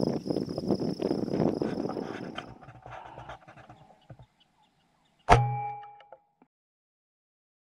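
Wind buffeting the microphone with insects chirping, fading out after about three seconds. About five seconds in, a single sharp shot from a .25-calibre Air Venturi Avenger PCP air rifle, followed by a brief metallic ring.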